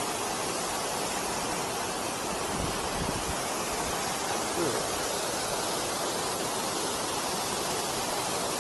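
Steady rushing of river water pouring over a weir, an even unbroken roar of noise. A brief low rumble about three seconds in.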